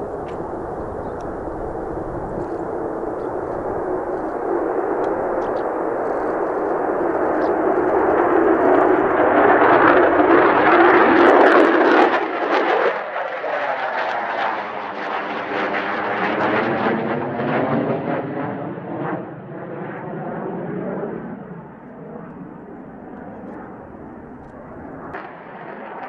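Mitsubishi F-2A fighter's single General Electric F110 turbofan at takeoff power. The jet roar builds as the aircraft climbs out, peaks with crackling as it passes close overhead about ten to twelve seconds in, then drops sharply and fades as it departs. Near the end a second F-2A's engine roar rises as it lifts off.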